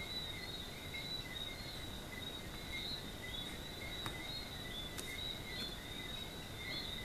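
Insects chirring steadily in a high, continuous trill, with two faint clicks about four and five seconds in.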